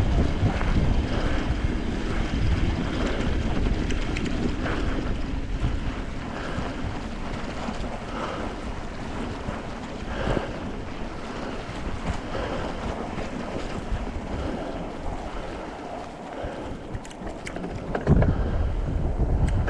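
Mountain bike tyres crunching through fresh snow, with wind rumbling on the microphone and a louder rumble near the end.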